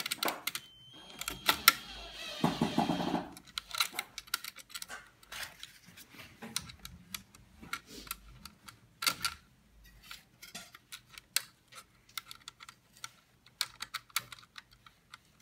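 Irregular small clicks and taps of metal washers and fasteners being handled and fitted to a circuit board's mounts inside a sheet-metal machine cabinet. A louder rustle lasting about a second comes about two and a half seconds in.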